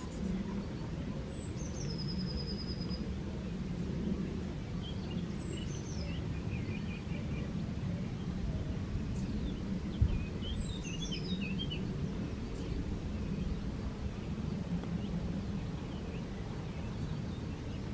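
Wind rumbling on the microphone, with songbirds calling over it: a high falling trill that settles on a repeated note, then scattered chirps and a quick run of falling notes. A single knock about ten seconds in.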